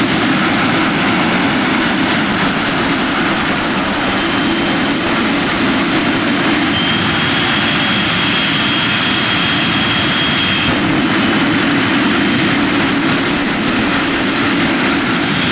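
Jet engine of a jet-powered truck running steadily at high power, blasting into a school bus. A high, steady whine joins the noise about seven seconds in and cuts off about three and a half seconds later.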